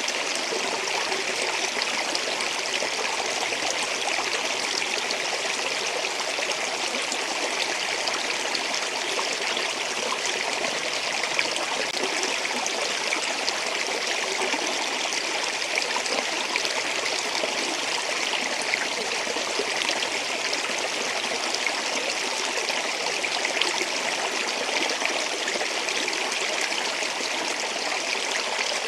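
Flowing stream water, a steady, even rush with fine trickling and splashing throughout.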